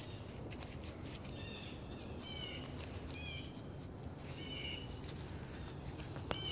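A dog whining in short, high-pitched whines, four of them about a second apart, excited at the sight of a deer. A single sharp click comes near the end.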